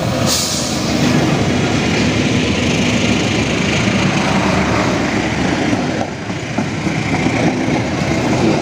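A train passing close by: the locomotive and the wheels running on the rails, loud and steady.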